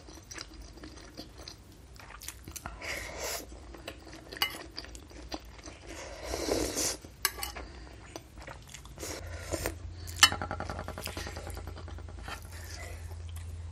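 Close-miked eating sounds: chewing and slurping of beef meatball soup (bakso) sipped from a metal spoon, with small clicks of the spoon. There is one sharp clink of the spoon against the ceramic bowl about ten seconds in.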